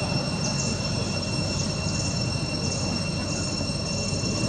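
A steady, high insect drone with an even tone, with short rising chirps about once a second, over a continuous low rumble of background noise.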